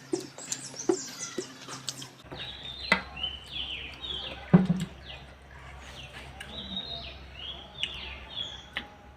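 A person eating rice by hand close to the microphone: chewing and lip smacks, with a few sharp clicks against the plate. A run of short, high chirps runs through the middle and end.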